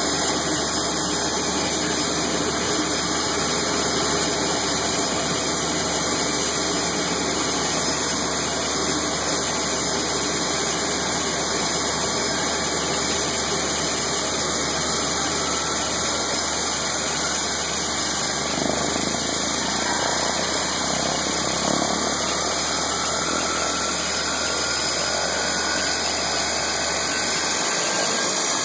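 Single-engine jump plane's engine idling steadily on the ground with its propeller turning, a faint rising whine coming in over the second half.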